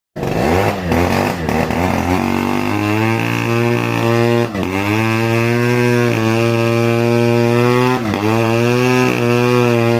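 Two-stroke chainsaw engine revved up and held at high speed, its pitch wavering over the first two seconds, then steady, with two brief sharp dips about four and a half and eight seconds in.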